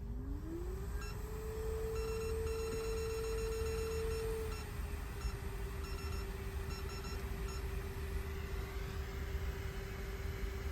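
A small electric blower motor whines as it spins up within the first second, then runs steadily, settling slightly lower about halfway through. Irregular short electronic beeps sound over it for several seconds.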